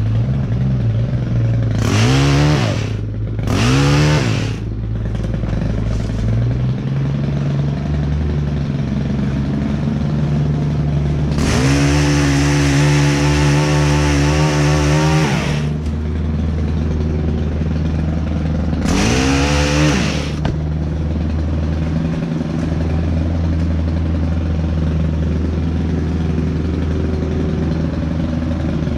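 A battery-powered pole saw spins up and cuts into branches overhead, in four bursts that rise and fall in pitch: two short ones in the first few seconds, a longer cut of about four seconds near the middle, and a short one around twenty seconds in. Underneath, an engine idles steadily.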